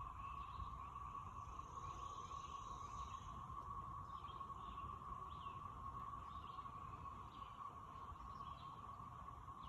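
Faint outdoor ambience: a steady hum at one even pitch, scattered faint bird chirps, and a low wind rumble.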